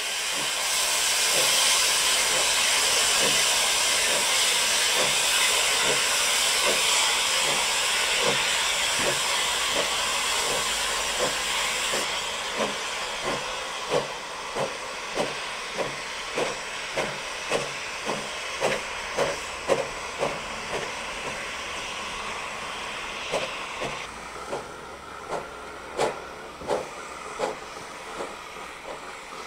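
An 1861 R. Stephenson & Co. steam locomotive working slowly: a loud hiss of escaping steam that eases off, with a steady beat of exhaust chuffs, a little under two a second, that grow more distinct toward the end.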